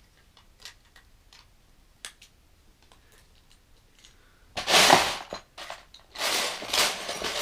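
Plastic Lego bricks clicking and tapping faintly, then a loud clattering rattle of loose Lego pieces being dug through in a plastic storage bin, once briefly about four and a half seconds in and again for a couple of seconds near the end.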